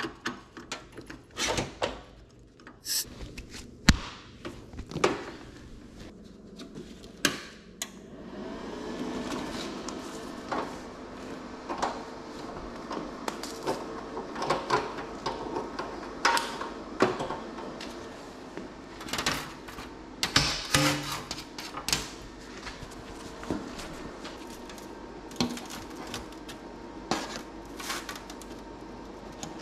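Workshop handling noises: scattered knocks, clanks and rattles of a plasma cutter and its hoses being set up, and of clamps and a steel straightedge being placed on sheet steel. From about eight seconds in, a steady machine hum runs underneath.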